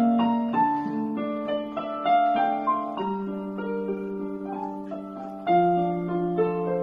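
Electronic keyboard played with a piano sound: a slow, gentle melody over held chords, with a louder chord struck about five and a half seconds in.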